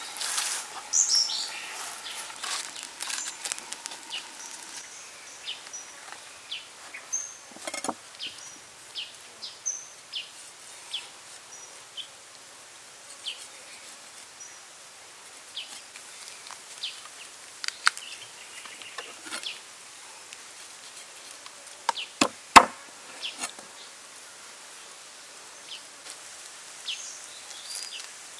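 Outdoor ambience of birds chirping and insects, with scattered taps and a few sharp knocks, the loudest about 22 seconds in, from a cleaver cutting up a raw duck.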